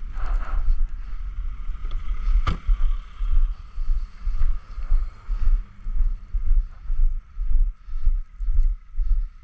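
Footsteps walking through snow at about two steps a second, with wind rumbling on the microphone and one sharp click about two and a half seconds in.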